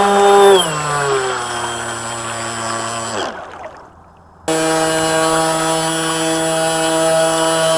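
Model boat's water-cooled brushless electric motor whining, steady in pitch at first. About half a second in it throttles back and winds down to a stop around three seconds in. After about a second of quiet it starts again abruptly and runs at a steady pitch.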